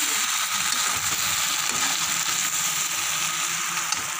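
Macaroni with tomatoes and peas sizzling in a steel pan, with a ladle stirring and scraping through it.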